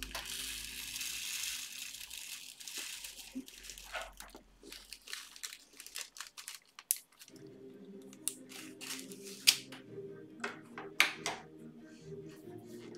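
Plastic crinkling and sharp clicks as a small bag of diamond-painting drills and a clear plastic drill tray are handled. Quiet background music comes back about seven seconds in.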